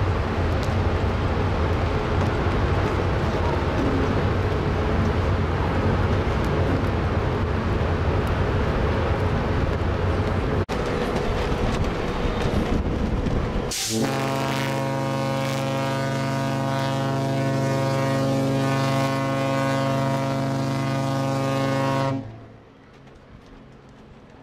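Wind buffeting the microphone over the low rumble of a cruise ship under way. About 14 seconds in, the ship's horn sounds one long, steady blast of about eight seconds, which cuts off abruptly.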